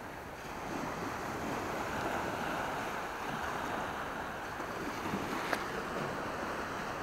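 Small waves breaking gently and washing up onto a sandy beach, a steady soft wash of surf. A brief click sounds about five and a half seconds in.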